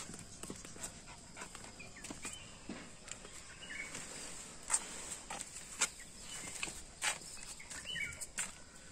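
Footsteps of rubber clogs scuffing and tapping on concrete steps and paving, a sharp tap every second or so, with a few faint short high chirps in between.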